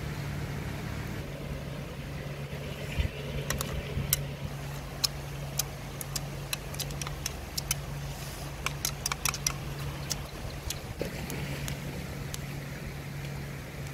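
A steady low engine hum. From about three seconds in to about ten, a run of sharp clicks: a metal spoon clinking against a bowl as chili-lime dipping sauce is stirred.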